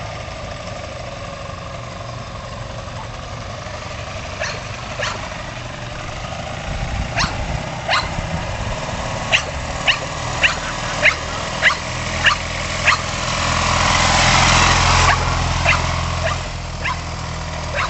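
A dog barking in a run of sharp single barks about every half second, over the steady low running of a sidecar motorcycle's engine. The engine grows louder for a couple of seconds about three-quarters of the way through.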